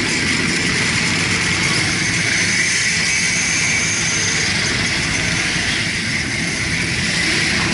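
Several motorcycle engines running steadily as a procession of motorcycles rides slowly past, one after another.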